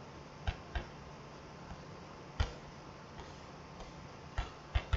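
Computer mouse clicking: about five short, sharp clicks, two close pairs and one on its own, over a faint steady low hum.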